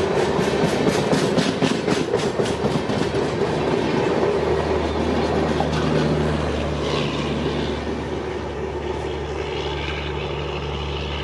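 Express train coaches rolling past close by, their wheels clacking rapidly over the rail joints. Then comes a steady low hum from the diesel generator in the train's power car as it passes, easing off as the train draws away.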